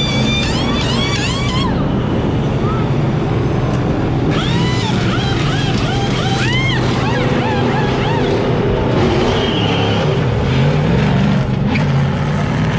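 Pit crew's pneumatic impact wrenches zipping lug nuts off and on during a race-truck tire change, in quick rising-and-falling whirs, over a steady engine drone. Toward the end a truck engine revs as it pulls away down pit road.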